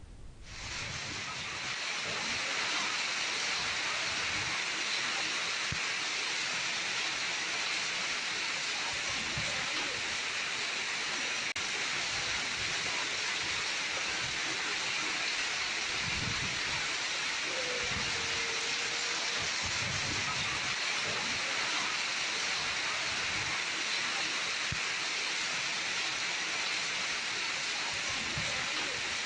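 Heavy rain mixed with hail falling on pavement and standing water: a steady hiss, with a few low thuds.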